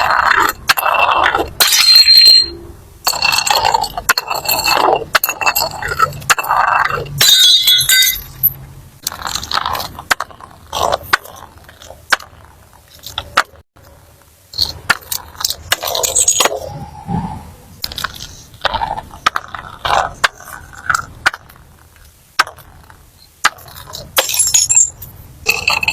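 Glass being smashed again and again, in irregular crashes and clinks with shards scraping and jingling. Some of the hits leave a brief high ringing.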